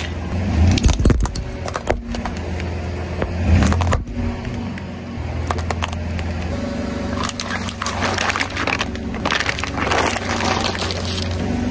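Car engine running steadily while objects crackle and crunch under its tyres, with many short cracks and snaps, most of them in the second half.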